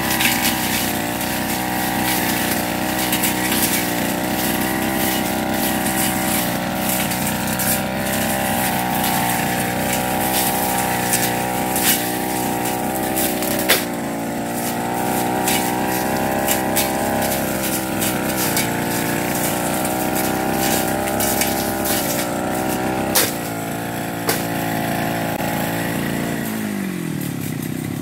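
Backpack brush cutter's small engine running at cutting speed, steady, with occasional sharp clicks. Near the end its pitch falls as it drops back toward idle.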